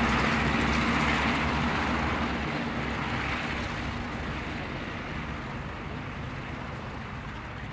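Bristol Blenheim's two Bristol Mercury radial engines running at taxiing power as the aircraft moves away, the engine drone fading steadily.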